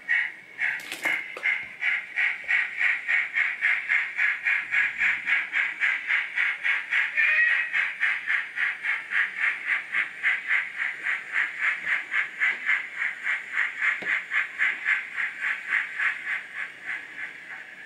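Sound-decoder steam exhaust (Zimo decoder with Paul Chetter/Digitrains steam sound) from an O-16.5 narrow-gauge 0-6-0 model locomotive under way. Regular chuffs quicken from slow beats to about three a second and fade away near the end.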